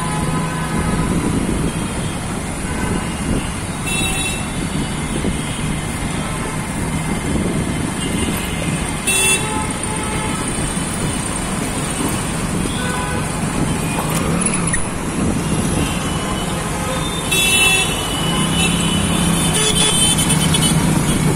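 Busy city traffic heard from a moving auto-rickshaw: steady engine and road noise, with short vehicle horn toots about 4 s, 9 s and 17 s in, and again near the end.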